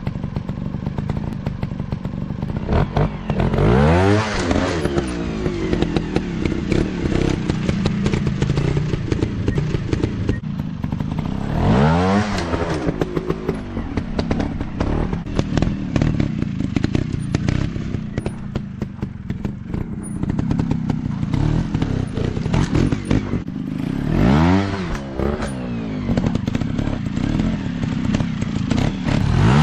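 Dirt bike engines running on an off-road trail, revving up and back down four times, with clattering and knocking from the bikes.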